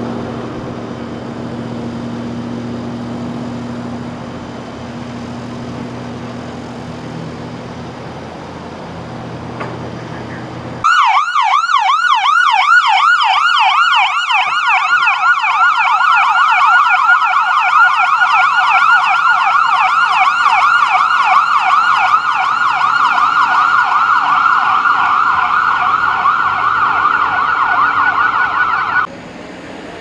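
A vehicle engine idling with a steady low hum. About eleven seconds in, a loud emergency-vehicle siren starts abruptly in a rapid yelp, sweeping up and down many times a second, and cuts off suddenly near the end.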